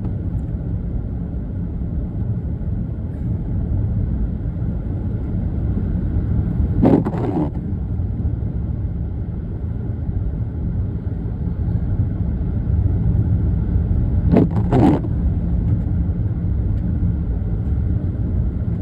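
Steady low rumble of a car's engine and tyres heard from inside the cabin, with a windshield wiper swishing across the glass and back twice, about seven seconds apart, as on an intermittent setting.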